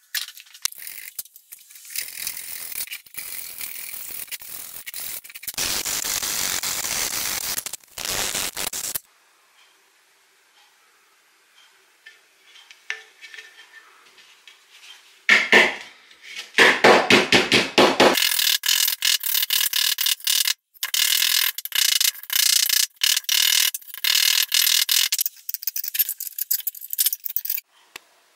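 A steady rushing noise for the first several seconds. After a pause comes a long run of rapid hammer taps on the sheet-steel housing of a Land Rover Series oil-bath air filter, beating out its dents.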